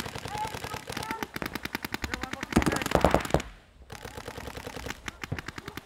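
Paintball markers firing in fast strings, many shots a second, with several guns going at once and a brief lull about three and a half seconds in.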